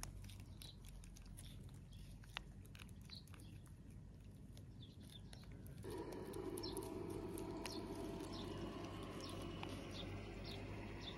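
A kitten licking and chewing a squeeze-tube cat treat: small, quick wet clicks. Short bird chirps repeat in the background, and a steady low rushing noise comes in about six seconds in.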